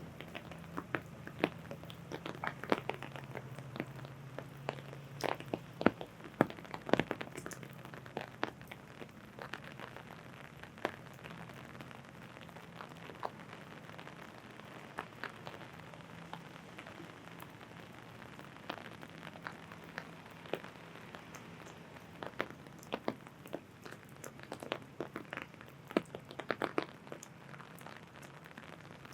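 Raindrops hitting an umbrella canopy: many irregular sharp taps over a steady rain hiss, with a low steady hum underneath.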